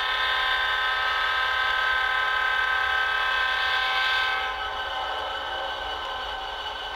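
Diesel locomotive air horn sounding one long chord of several steady notes. It drops in level somewhat a little past halfway and keeps sounding.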